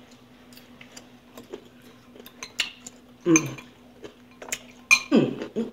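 Eating noises at a meal: scattered sharp clicks and clinks of utensils against a dish or food container. Two short vocal sounds come about three seconds in and near the end, over a faint steady hum.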